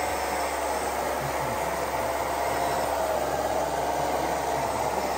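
Radio-controlled model trucks and construction machines running: a steady mechanical hum with a faint whine that wavers slightly in pitch.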